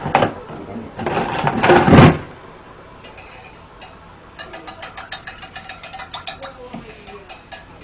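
A loud voice for about the first two seconds, then a spoon clinking rapidly and steadily against a cooking pot as noodles are stirred.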